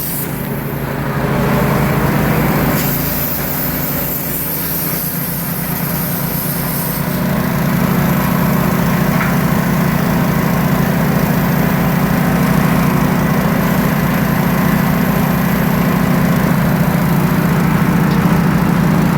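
A small engine running steadily, getting louder about seven seconds in, with a high hiss over it for the first several seconds.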